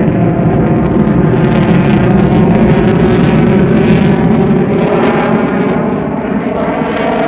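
Loud jet noise from a Eurofighter Typhoon's twin EJ200 engines during its display, swelling to a peak about four seconds in and then easing slightly.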